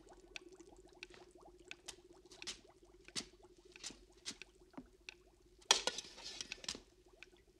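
Film sound effects of hands patting and scratching across a floor: sparse, irregular soft taps over a faint steady hum, with a louder rustle about three-quarters of the way in.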